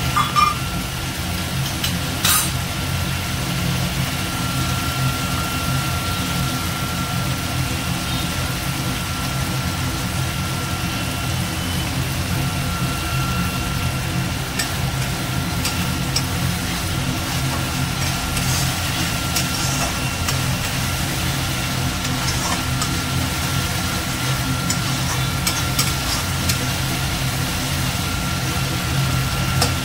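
A steady low mechanical hum with a thin steady whine over the soft sizzle of spice paste frying in oil in a steel kadai. A few clinks and scrapes of a metal spatula against the pan come now and then.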